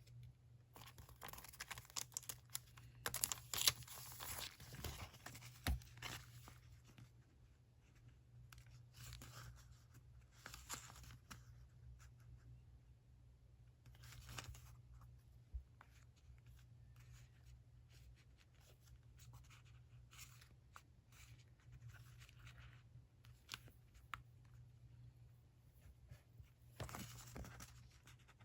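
Paper and stickers being torn and handled at a desk, in bursts during the first few seconds and again near the end, with scattered small taps and rustles between.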